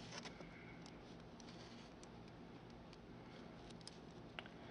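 Near silence with a few faint, scattered clicks of plastic LEGO parts being turned by hand.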